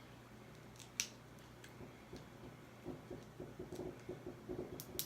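Close-miked eating of crab legs: a single sharp click about a second in, then irregular soft chewing and smacking through the second half, with a couple of sharp clicks near the end.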